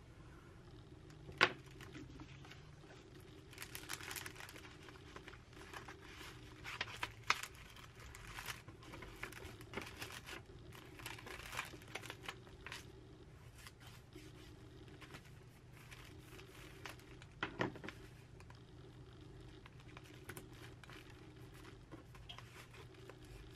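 A paper envelope being handled: quiet, uneven rustling and crinkling as it is folded shut and pressed flat, with a sharp click about a second and a half in and another later on. A low steady hum sits underneath.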